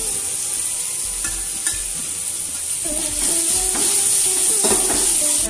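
Hot coconut oil sizzling in a non-stick kadai as grated coconut is tipped in and stirred through frying shallots and green chillies, with a few short scrapes of the spoon against the pan.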